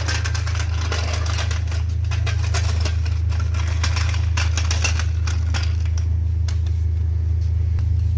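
Mazda 3 engine idling steadily, with a rapid light ticking over the low hum.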